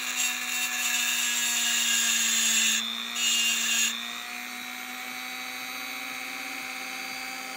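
Dremel rotary tool spinning an abrasive stone against a small rifle extractor, grinding its edge sharper so it can grip spent cases. The grinding hiss stops briefly around three seconds in, then ends about four seconds in, leaving the tool's motor whining steadily and more quietly.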